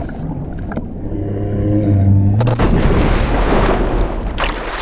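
Camera plunged under lake water. The sound is muffled, with bubbling and a low steady drone in the first half. Louder churning water rumbles in the second half, and the high sounds come back near the end as the camera breaks the surface.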